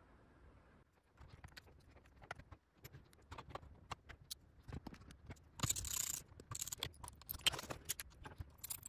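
Hard 3D-printed plastic parts being handled and fitted together: irregular small clicks and taps, with a brief scraping rub about six seconds in.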